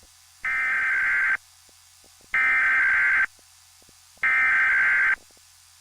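Emergency Alert System SAME data bursts: three loud, screeching digital tone bursts of about a second each, about a second apart.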